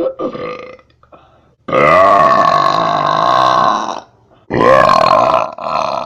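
A person burping loudly: a short burp at the start, then two long, drawn-out burps of about two seconds each, the last still going at the end.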